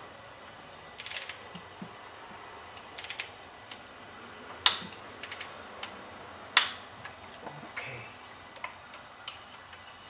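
Ratchet wrench on an extension clicking in short runs as a new spark plug is turned down in the engine's cylinder head, with two sharper, louder clicks about two seconds apart midway through.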